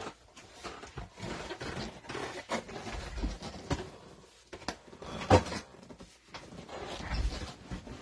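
Rustling and small knocks of things being handled on a table, with one sharper click a little past halfway.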